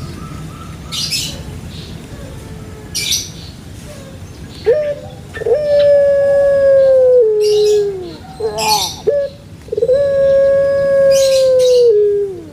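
Dove cooing in its morning song: two long drawn coos, each held level for about two seconds and then dropping in pitch at the end, with shorter coos between them and brief hissy sounds.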